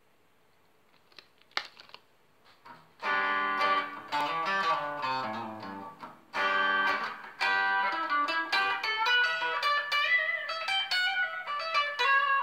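Electric guitar strung with Ernie Ball Skinny Top Heavy Bottom 10–52 nickel-wound strings. After a few faint handling clicks, chords are strummed and left ringing about three and six seconds in, then quicker picked notes follow.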